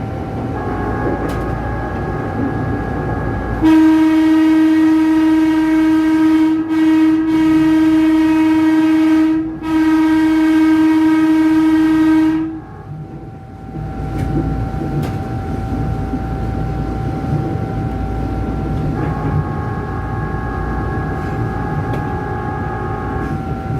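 Electric horn of a Tokyu 8500-series commuter train sounding a long, loud call of about nine seconds, broken three times by short gaps. Around it the train runs on the track with a steady rumble and a faint steady whine.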